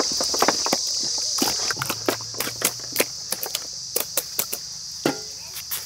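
Irregular wet squelches and smacks of bare hands working whole chickens through a yogurt marinade on a metal plate, with one sharper knock about five seconds in. A steady high insect drone runs underneath.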